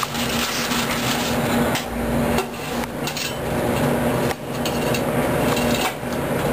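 Popcorn being scooped out of a popcorn machine's cabinet into a paper bag: a continuous crackling, scraping rustle with many small clicks, over a steady low hum.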